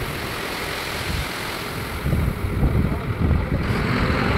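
Low rumble of road-construction machinery engines, with wind buffeting the microphone from about two seconds in.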